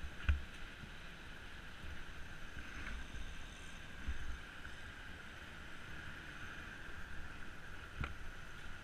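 Faint, steady drone of an idling vehicle engine, with uneven low rumbles on the microphone and two sharp knocks, one just after the start and one near the end.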